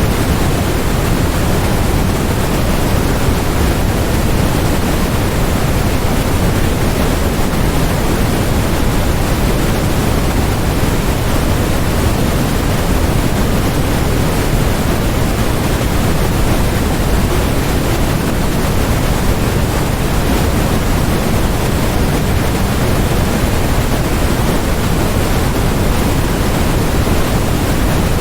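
Continuous generated white noise: a steady, unchanging hiss, heavier in the low end.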